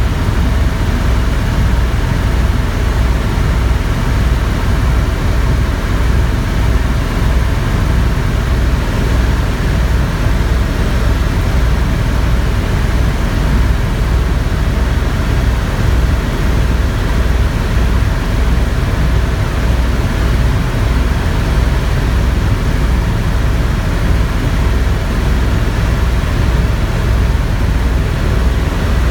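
Helicopter in steady flight: constant engine and rotor noise with a fast, even low beat from the rotor blades.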